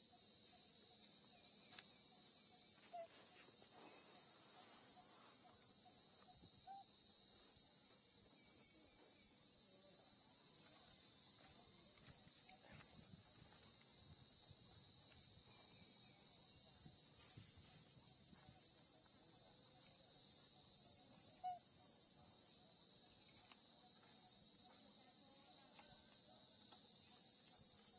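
Steady, high-pitched insect chorus, an unbroken buzzing hiss that does not change throughout, with a few faint short chirps now and then.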